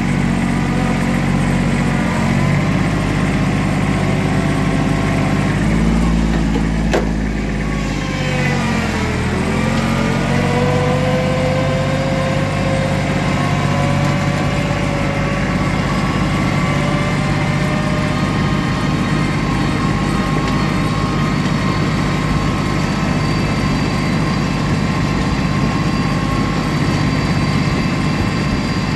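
Engine of a vehicle running steadily while driving over rough cleared ground; about seven seconds in its pitch drops and then climbs back up over the next few seconds.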